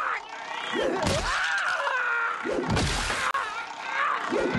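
Game-show big wheel spinning, its pegs clicking past the pointer, with voices crying out in long swooping exclamations about every second and a half.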